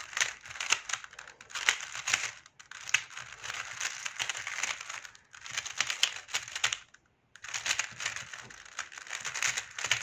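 Stickerless 3x3 speed cube being turned very fast in a speed solve: dense runs of rapid clicking and clacking from the layers, broken by short pauses, the longest a near-silent gap about seven seconds in.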